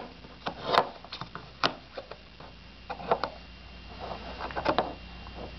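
Plastic Play-Doh tubs and lids being handled: scattered light clicks and taps as a lid is pressed onto a tub and the tubs knock on the table.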